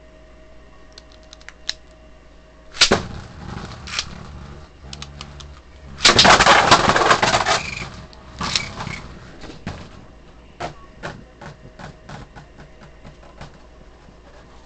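Spinning metal Synchrome Beyblade tops clashing and rattling in a plastic Zero-G stadium. There is a sharp hit about three seconds in, then a dense flurry of rapid clashes about six seconds in that lasts nearly two seconds. After that come scattered clicks that thin out as the tops slow.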